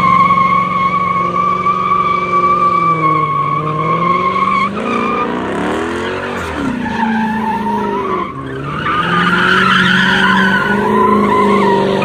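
Car doing donuts: the engine is held at high revs while the tyres squeal in one steady high note. About five seconds in the squeal breaks off as the revs drop and climb again, and from about nine seconds in a harsher, rougher tyre squeal returns with the engine pulling hard.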